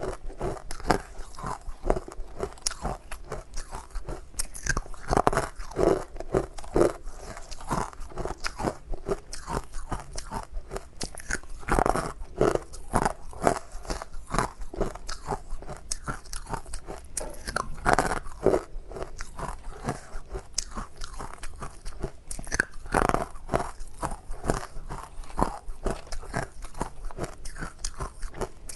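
Close-miked ice being bitten and chewed: a continuous run of irregular, sharp crunches and cracks as the ice is crushed between the teeth.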